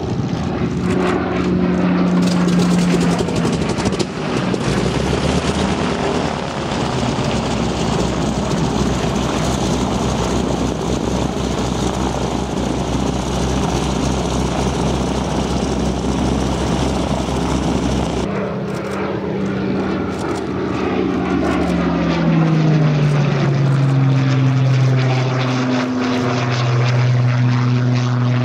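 Hawker Hurricane's Rolls-Royce Merlin V12 engine and propeller droning in flight overhead. Past the middle the engine note drops in pitch as the plane passes, then holds steady at the lower pitch.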